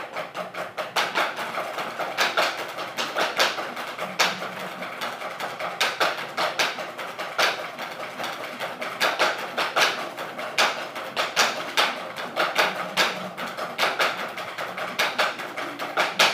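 Several drumsticks played together on wooden practice pads: a fast snare-drum solo of rapid clicky strokes with louder accents, stopping abruptly at the end.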